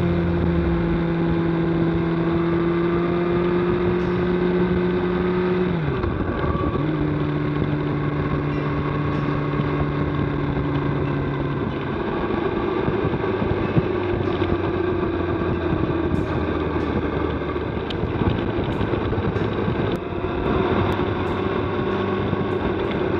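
Sport motorcycle engine running steadily at road speed, heard through the bike's onboard camera with road and wind noise. About six seconds in the engine note drops briefly and picks back up. After about twelve seconds it runs lower and rougher.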